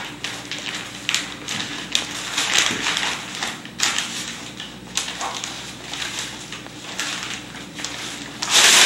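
Cardboard packaging being torn open and handled by hand: a string of rips, rustles and crinkles, the loudest a long rip near the end.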